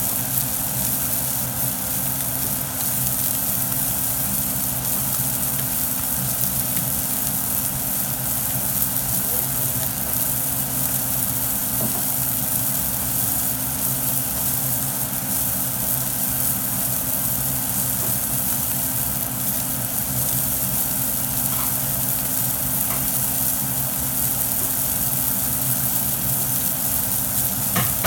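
Salmon fillets sizzling in a frying pan, a steady hiss over a steady low hum.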